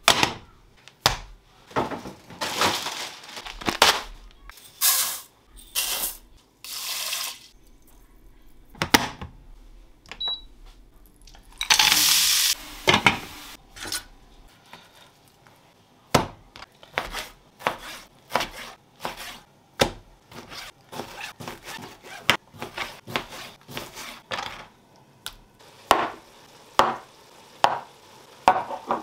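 Kitchen cooking sounds: a frying pan and pot lids knocking and clattering on a hob, with cooking utensils clinking. A few short hissing bursts come in the first half, and from about halfway there is a quick run of taps and clicks.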